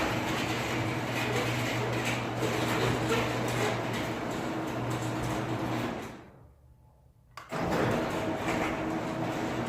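Sectional garage door travelling on an electric opener: a steady mechanical rumble with a low hum, dying away about six seconds in. A second door run starts abruptly about a second and a half later.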